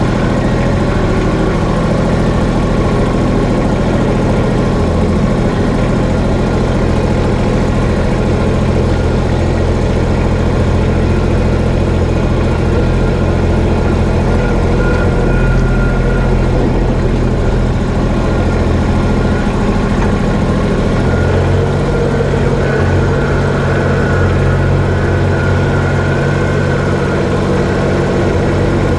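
Kubota BX25 compact tractor's three-cylinder diesel engine running steadily while the tractor drives with a loaded front bucket. The engine note shifts slightly about two-thirds of the way through.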